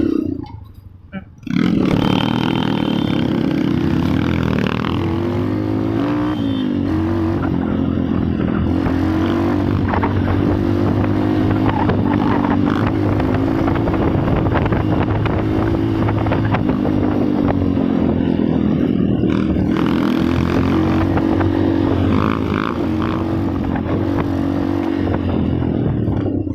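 A motor vehicle engine running steadily, starting about a second and a half in, its pitch wavering up and down.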